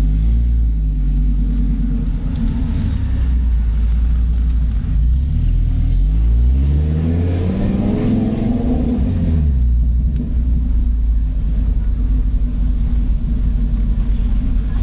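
Fiat Marea HLX 2.4's five-cylinder engine running loud with no exhaust system fitted, idling, then revved once in the middle and let fall back to idle.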